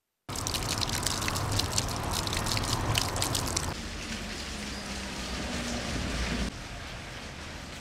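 Water dripping and splashing over a steady wash of water noise, with dense drips for the first three and a half seconds; then the sound steps down to a quieter, steady wash, dropping again about six and a half seconds in.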